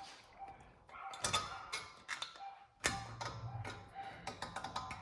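Hand tools at work on a car's brake caliper: light metallic clicks and ticks, with one sharper metal knock about three seconds in followed by a quick run of clicks.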